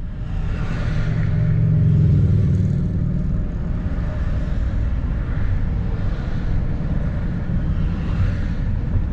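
Road and engine noise inside a moving vehicle's cabin: a steady low rumble that swells about two seconds in, then holds steady.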